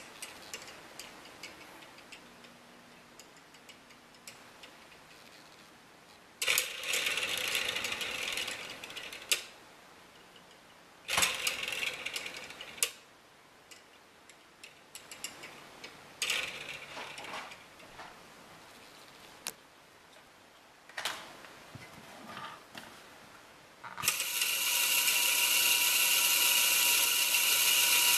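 LEGO Technic pin coupling turned by hand, its plastic pins and beams clicking and rattling in several short bursts. Near the end a small LEGO electric motor takes over and spins it fast: a steady motor whine with a continuous plastic rattle.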